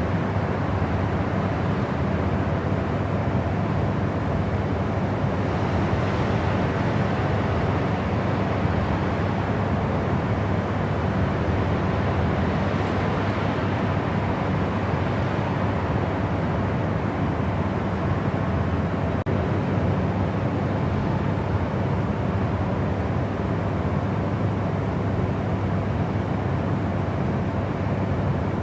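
Steady white noise for sleep: an even, unchanging rush of noise, heaviest in the low end, with a faint steady hum under it.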